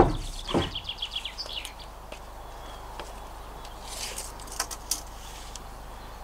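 A wooden board knocks down onto a table saw's metal top, with a second, softer knock about half a second later. Meanwhile a songbird gives a quick trill of a dozen or so high notes that rises at the end. After that comes quiet outdoor background with a few light clicks from handling.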